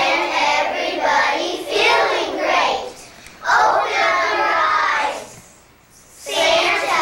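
A group of young children singing together in phrases, with a short break about three seconds in and a longer one near the end.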